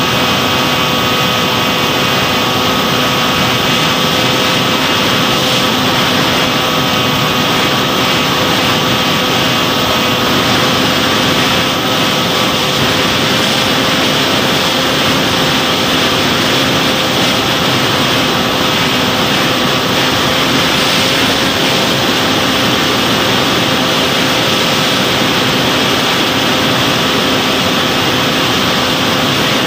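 Electric motor and propeller of an FPV model aircraft running steadily in flight, heard from on board: a steady multi-pitched whine over an even hiss of rushing air.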